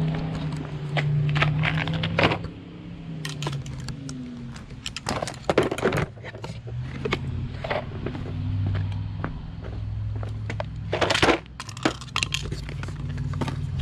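Irregular clicks, knocks and light clatter from tools and oil-change equipment being handled and set down, loudest about five seconds in and again near eleven seconds, over a steady low hum.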